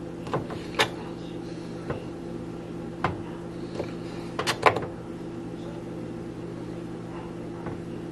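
Kitchen knife cutting raw chicken breast on a cutting board: several short sharp taps of the blade against the board in the first five seconds, three of them in quick succession near the end of that stretch. A steady mechanical hum runs underneath.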